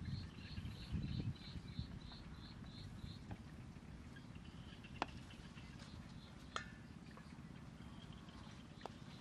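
Faint outdoor ambience: a high chirp repeated about three times a second that stops about three seconds in, over a low rumble. Later come a few single light clicks.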